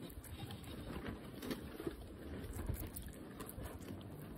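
Guinea pig biting and chewing a slice of fresh tomato: a run of quick, irregular soft clicks.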